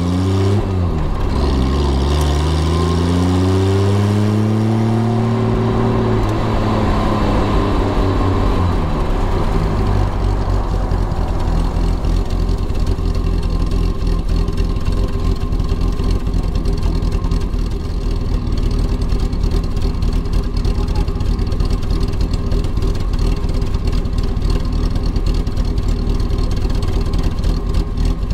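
Classic Triumph sports car engine rising in pitch as it accelerates over the first few seconds, then running steadily with a low rumble.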